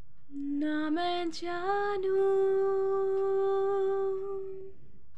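A woman humming unaccompanied: a few short notes stepping upward, then one long held note that fades out about four and a half seconds in.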